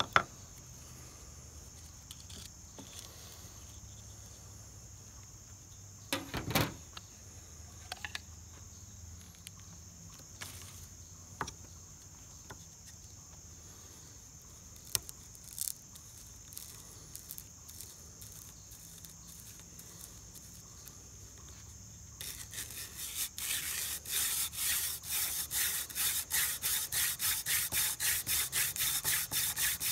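Crickets chirring steadily, with a few light knocks of handling. About 22 seconds in, a hand-drill spindle starts being spun between the palms into a soft, degraded tulip poplar fireboard: an even, rhythmic wood-on-wood rubbing that grows louder, the burn-in and ember drilled in one go.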